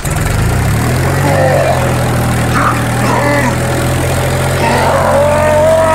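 Tractor engine running at a steady idle, a low even hum that starts abruptly and settles within the first second. Brief warbling higher sounds come over it a few times.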